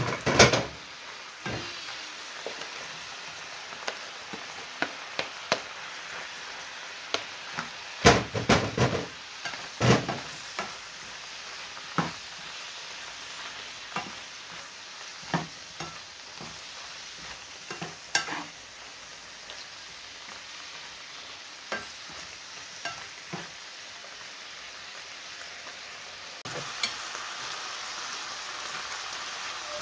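Chicken strips and sliced mushrooms sizzling in a non-stick frying pan, with a spatula knocking and scraping against the pan as it stirs. A burst of louder clattering comes about eight to ten seconds in, and the sizzle grows louder near the end.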